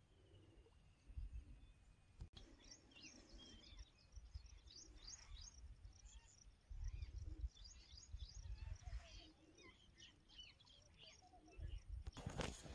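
Faint outdoor ambience of birds chirping, many short quick chirps, with low rumbles now and then. A brief burst of noise comes near the end.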